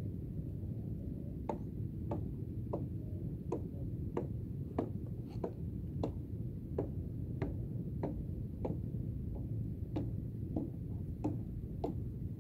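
Sharp clicks at an even pace, about three every two seconds, over a steady low rumble.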